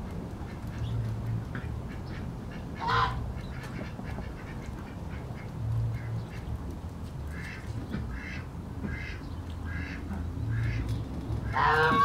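Ducks quacking: one loud call about three seconds in, a quick run of about six short quacks later on, and a louder call at the very end. Under them runs a steady low drone of distant city noise.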